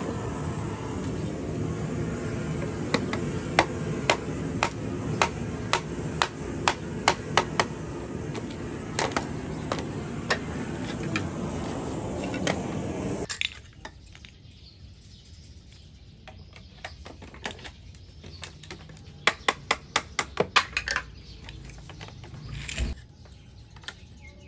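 Sharp hollow knocks on a bamboo chair frame as its pieces are tapped into their joints, about two a second for several seconds. They sound over a steady background noise that cuts off abruptly about halfway through. Later come a few quick clusters of knocks.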